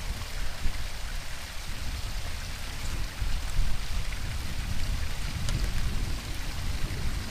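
Small hill-stream waterfall splashing and rushing steadily.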